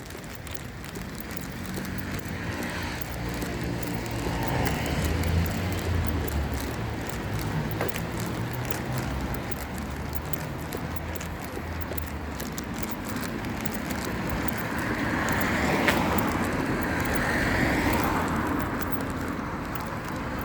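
Road traffic: a vehicle engine hums low through the first half, then a vehicle passes, swelling and fading in the last third.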